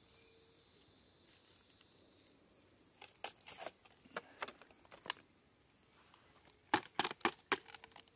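Hands handling crinkly plastic and wax from an old bee bait, giving short crackles and crinkles in two bursts: one about three seconds in and a louder one near the end.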